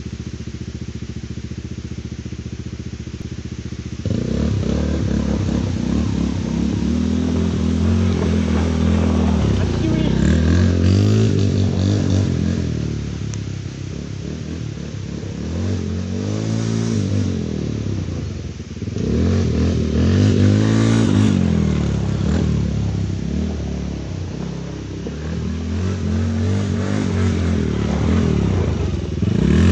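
Sport quad's engine idling steadily, then, about four seconds in, being ridden with the revs rising and falling in repeated long sweeps.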